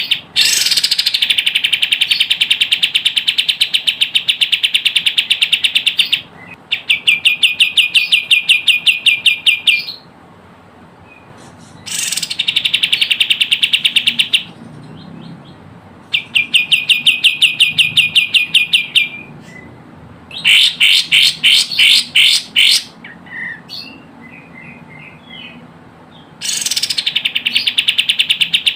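Kapas tembak song: rapid trills of repeated high notes, many per second, in bursts of several seconds with short pauses between them. A louder, slower burst comes about two-thirds of the way through. It is a recording mixed as a lure call to draw in wild kapas tembak.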